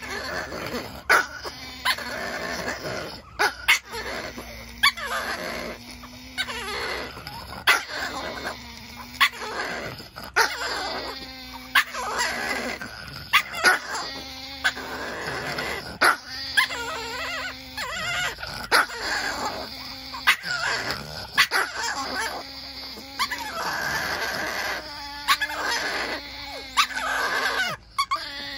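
Two Chihuahuas growling back and forth at each other in repeated, drawn-out grumbles, with frequent short, sharp barks breaking in.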